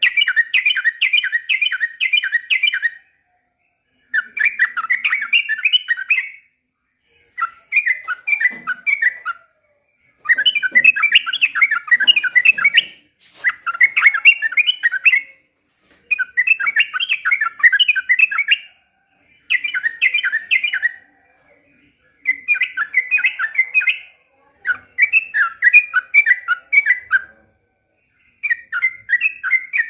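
Yellow-vented bulbul (trucukan) singing in full voice. It repeats phrases of quick, bubbling notes, each phrase two to three seconds long, with short pauses between them, about ten phrases in all.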